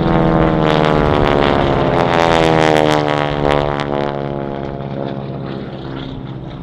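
North American Harvard's Pratt & Whitney R-1340 nine-cylinder radial engine and propeller as the plane flies past overhead: a loud drone whose pitch falls as it goes by, fading away over the last few seconds.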